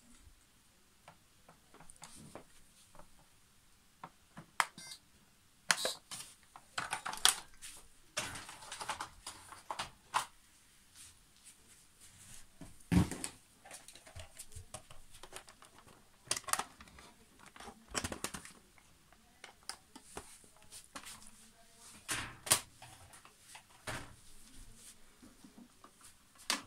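Irregular clicks, knocks and light rattles of a white metal three-tier trolley being handled and having objects set on its shelves, with some rustling between them.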